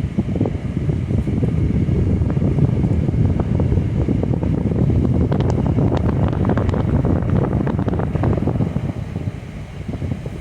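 Wind buffeting the microphone over the rumble of a car driving along the road, a steady low noise that eases near the end.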